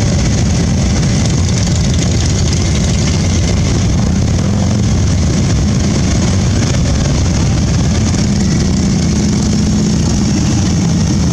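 Many heavy touring motorcycle engines idling together in a column that creeps slowly forward: a steady, loud, low engine sound with no breaks.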